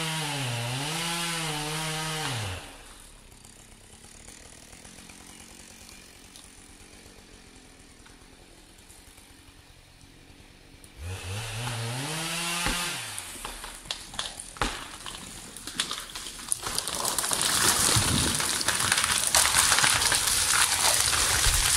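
Husqvarna 572 XP chainsaw running and revving, then cutting out about two and a half seconds in; it revs up and drops again near the middle. Sharp cracks follow as the cut tree gives way, then a loud crashing as the conifer falls through the neighbouring branches.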